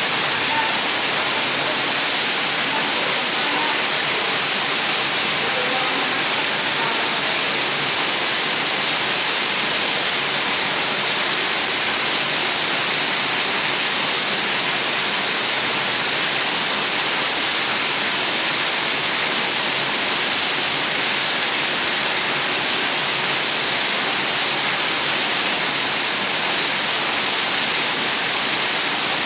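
Rainwater gushing from several roof drain spouts in heavy streams and splashing onto the ground below: a steady, even roar of falling water, the drains carrying off a downpour.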